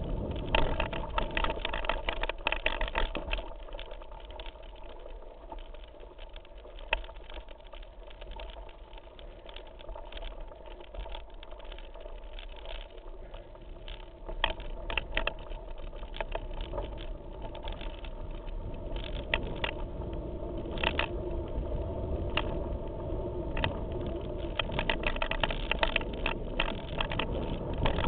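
Mountain bike riding down a rough forest singletrack, heard through a handlebar-mounted camera: tyres rolling over stones and dirt, with the bike and mount rattling and knocking over the bumps. The knocking eases off for a stretch in the middle and gets busy again in the second half.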